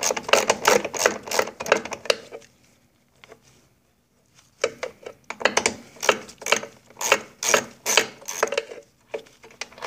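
Ratchet wrench with a 3/8 socket clicking in quick back-and-forth strokes as it loosens the nut on the shift rod connector's pin. It stops for about two seconds partway through, then resumes.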